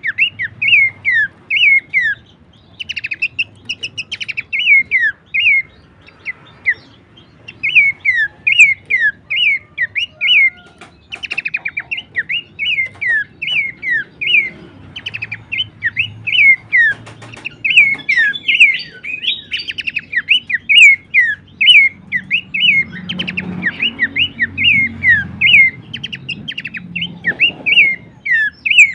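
Horsfield's babbler (pelanduk semak) calling: loud, short, falling notes repeated about three a second, in runs separated by brief pauses.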